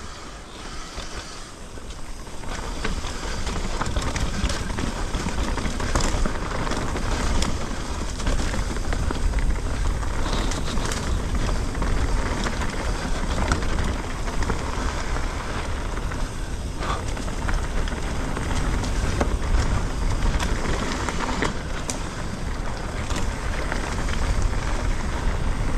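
Mountain bike ridden fast down a rough trail: a steady rush of wind over the camera microphone, with the tyres rolling over dirt and stones and many scattered knocks and rattles from the bike. It gets louder about two seconds in as speed builds.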